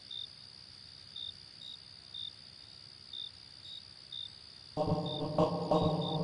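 Crickets chirping at night: short high chirps about once or twice a second over a steady high insect trill. About five seconds in, music comes back in over them.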